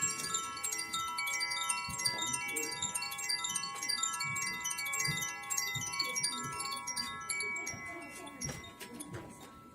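Wind chimes ringing: many clear, overlapping tones struck again and again and left to ring, fading away near the end.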